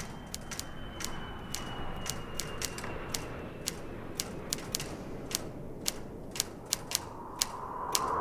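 Typewriter keys clacking in an irregular typing rhythm, about three to four strikes a second.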